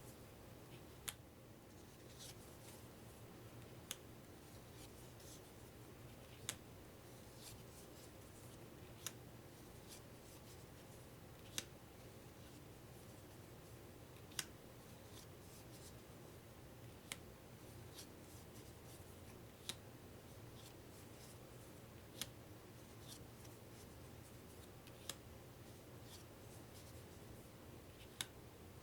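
Playing cards being laid down one at a time: a sharp little snap about every two and a half seconds, with faint sliding and rustling between, over a low steady hum.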